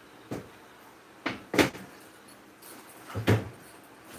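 Several separate knocks and clunks of gear being handled and set down on a desk, the loudest about a second and a half in and another just after three seconds.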